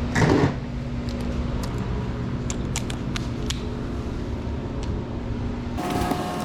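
A steady low machine hum with scattered light clicks. About six seconds in, a busier clatter starts.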